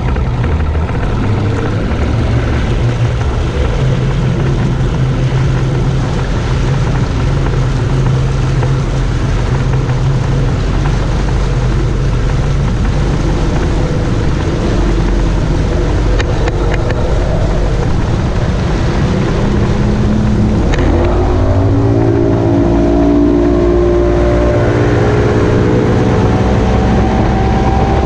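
Bass boat's outboard motor running under way, over a steady rush of wind and water; about two-thirds of the way through the engine pitch rises as it is throttled up and the boat speeds up.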